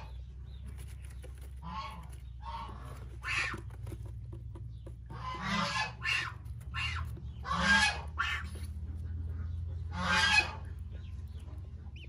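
Adult waterfowl honking: a string of raspy calls about every second, the loudest about three and a half, seven and a half and ten seconds in, over a steady low hum.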